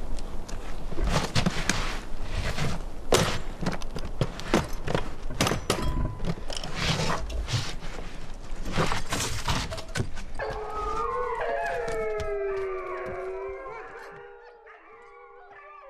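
Handling noise from packing a hard-shell suitcase: clothes rustling, and clicks and knocks as the case is shut and lifted. From about ten seconds in, several long gliding tones overlap, rising and falling, and fade somewhat near the end.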